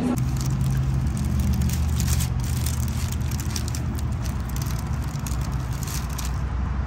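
A steady low mechanical hum, with the crackle and rustle of a paper wrapper as a cheese-stuffed soft pretzel is pulled apart on it.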